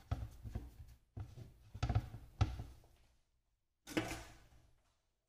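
Hands patting and pressing a soft chicken dough into a log on a plastic cutting board: a quick run of soft pats with two heavier thumps about two seconds in. One sharper knock follows about four seconds in.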